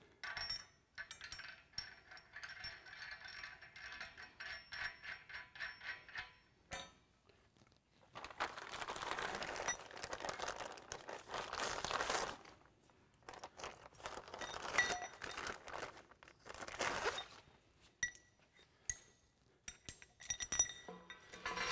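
Steel bolts, washers and nuts clinking and scraping against each other and the weight bar as they are handled and fitted by hand, with short metallic rings. In between, a clear plastic hardware bag rustles in two longer stretches.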